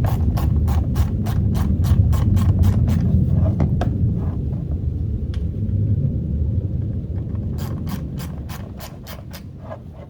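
A ratchet clicking in an even run of about four clicks a second as it drives a self-tapping screw, stopping a little under halfway through, then clicking again near the end, over a low rubbing rumble.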